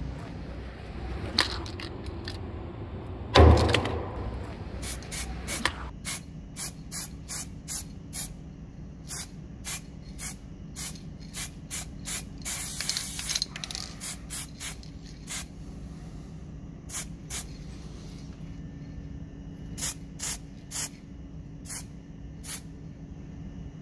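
Aerosol spray-paint can spraying in many short bursts, with one longer spray about halfway through. A single heavy thump comes about three and a half seconds in.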